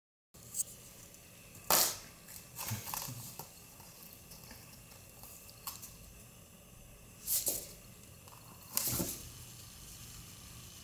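Kitten scrambling and pawing inside a cardboard box: several brief scratchy rustles and bumps of cardboard, spaced a second or more apart, over quiet room tone.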